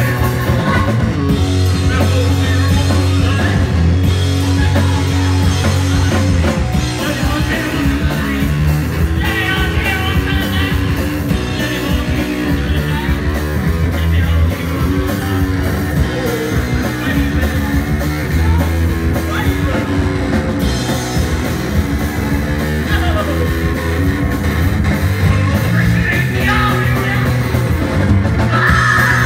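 Live rock band playing loudly, with electric guitar, drums and singing.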